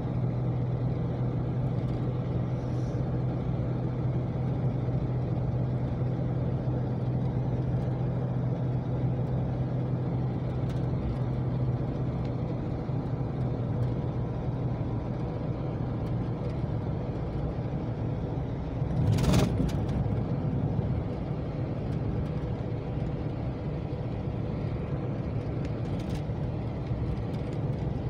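Steady road and engine noise inside a moving car cruising on a smooth highway, with a low hum that eases off about halfway. A brief louder rush of noise comes about two-thirds of the way through.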